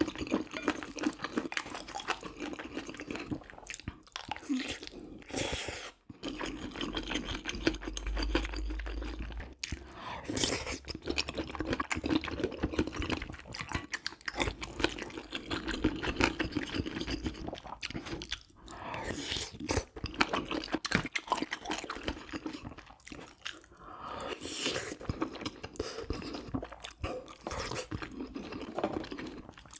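Close-miked chewing and crunching of food, a dense irregular run of small bites and mouth clicks.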